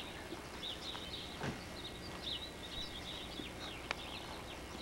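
Faint chirping of small birds: many short, high chirps scattered throughout, with a single sharp click about four seconds in.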